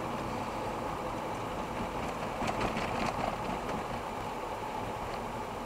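Steady tyre and engine noise of a car driving on a wet road, heard inside the cabin, with a few faint ticks about two and a half to three seconds in.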